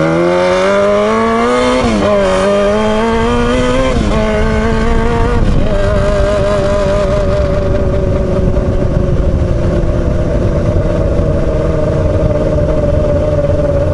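Yamaha R6's inline-four engine running with its exhaust pipe removed: it revs up, shifts up about two seconds in and again about four seconds in, then holds a steady cruise.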